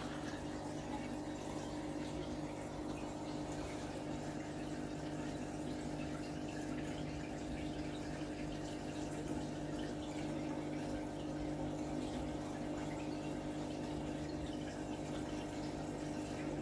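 Aquarium pump running: a steady low hum over a constant wash of moving water.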